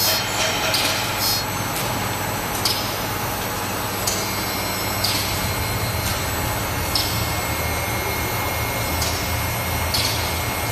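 CNC saw-blade sharpening machine grinding the teeth of an HSS circular saw blade: a steady motor hum with a short grinding burst every one to two seconds as the CBN wheel passes each tooth in turn.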